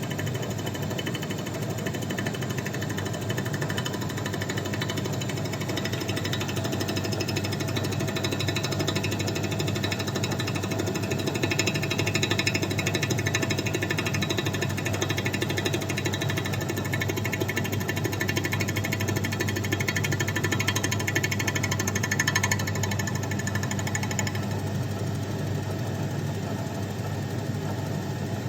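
Milling machine running and cutting a snap ring groove for a Yamaha RD350 YPVS crankshaft roller bearing: a steady, rapid mechanical chatter. A brighter, harsher cutting sound comes in about a fifth of the way through and drops away near the end.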